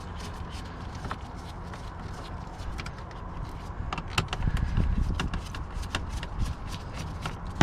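Scattered light clicks and plastic knocks of hand work on a car's interior door: the screws and broken interior door handle being taken out, with a busier, louder stretch of handling about halfway through, over a steady low rumble.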